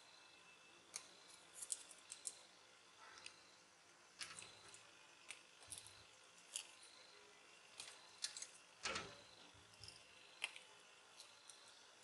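Small pliers nibbling and snapping away the plastic moulding of a 3.5 mm headphone jack: faint, irregular sharp clicks and cracks of breaking plastic, with a longer crackle about nine seconds in.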